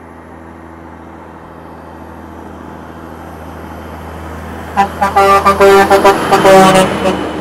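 Heavy truck engine drone growing gradually louder, then about five seconds in a vehicle horn blows in a quick string of loud toots lasting about two seconds.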